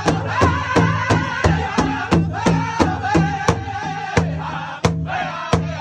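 A powwow drum group singing in unison over a large rawhide powwow drum that several drummers strike together in a steady beat, about three beats a second. The sung phrase breaks off about four seconds in and a new phrase starts near the end, with the drumbeat carrying on.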